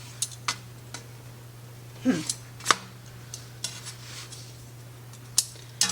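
Irregular sharp clicks and clinks of kitchen utensils against cookware, about ten over six seconds, over a steady low hum.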